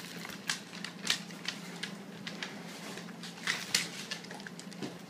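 A bluetick hound crunching Cheerios as it snuffles them up off a hardwood floor: irregular sharp crunches and clicks, a few louder than the rest.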